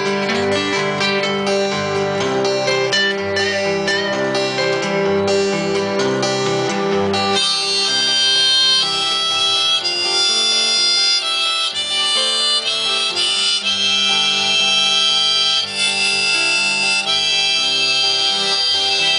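Instrumental break in a country song: acoustic guitars strumming over a bass line, then a harmonica solo comes in over the guitars about seven seconds in.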